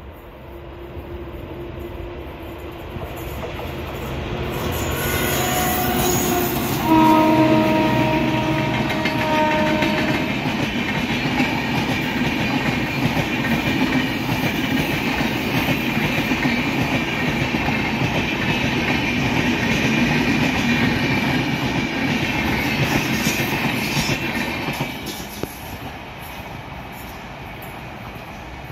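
An Indian Railways train approaching and running past: its locomotive horn sounds twice, a short blast and then a louder blast of about three seconds. The steady noise of the train on the rails builds, holds, then drops away near the end.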